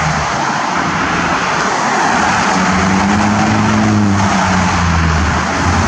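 Road traffic noise, with a passing vehicle's engine hum swelling about halfway through and fading out near the end.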